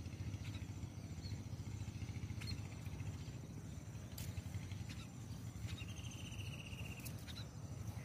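Outdoor ambience under a steady low rumble: small birds give short high chirps every second or two, with one pulsing trill lasting about a second late on, over a faint steady insect whine.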